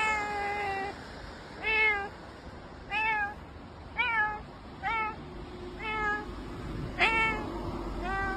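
Orange tabby cat meowing over and over while rubbing around a person's legs: about eight short meows roughly a second apart, each rising and then falling in pitch, the first one drawn out longer.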